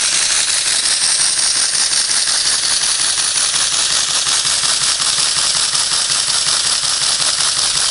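1:12-scale model Waller horizontal steam engine running steadily on compressed air: a rapid, even mechanical rattle with a continuous air hiss.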